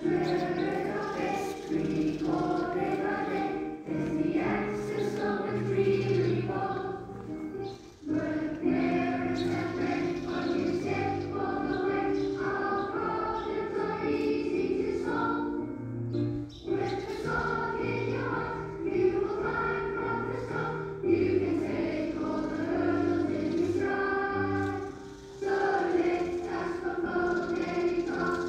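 A school assembly singing its school song together as a choir, the phrases broken by brief pauses for breath.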